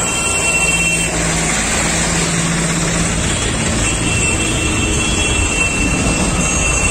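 Diesel tractor engines running close by in a jammed line of traffic: a steady engine drone over general road noise.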